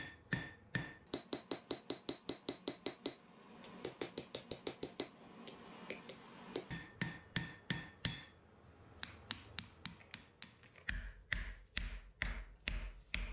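Hand hammer striking glowing steel on an anvil: a run of sharp blows, fast for a stretch, with a ringing anvil tone. Near the end a steady low hum comes in under further blows.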